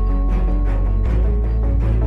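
Background music with a steady beat over a deep held bass note that shifts lower about a second in.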